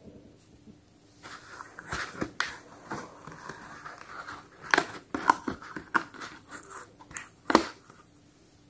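Rustling of cardboard and plastic packaging as small toy figures are handled and pulled out of their box insert. Several sharp clicks and knocks come through, the loudest near the middle and again near the end.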